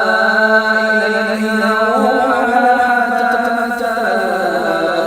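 A man's voice reciting the Quran in melodic, chanted tajweed, drawing out one long ornamented phrase with its pitch stepping down near the end.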